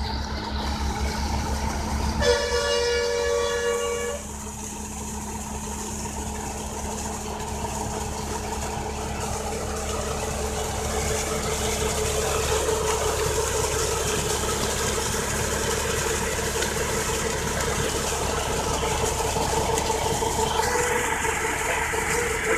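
Tractor diesel engine running steadily, driving a PTO centrifugal water pump, with water gushing from the discharge pipe. About two seconds in, a horn sounds for nearly two seconds.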